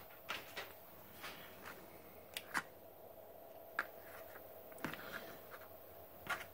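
Faint, scattered clicks and taps of alligator clips and multimeter test probes being handled and clipped onto a relay test circuit, over a faint steady hum.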